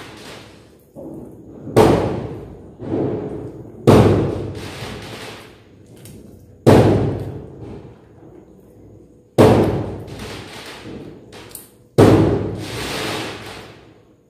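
A series of five sharp thuds, one every two to three seconds, each fading away over a second or two.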